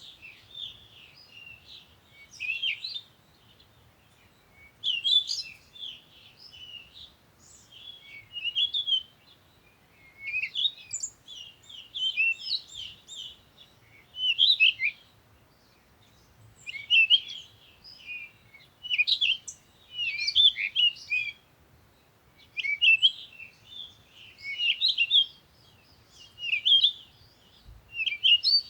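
High-pitched chirping animal calls in short phrases of quick notes, repeating every two to three seconds.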